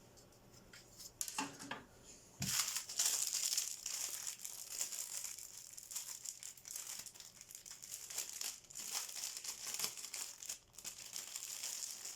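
Plastic packaging crinkling and rustling continuously as it is handled, after a couple of soft knocks in the first two seconds.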